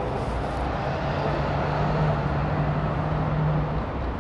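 City street traffic, with a box truck's engine giving a steady low drone that starts about a second in and stops shortly before the end.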